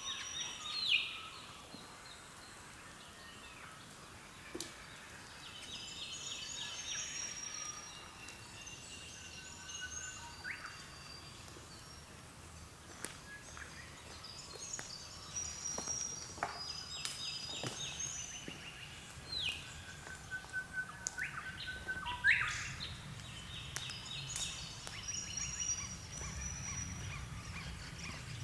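Several wild birds calling in a dawn chorus, overlapping. Fast repeated-note trills of about two seconds recur every several seconds among sharp sweeping calls and short whistles, over a faint low background rumble.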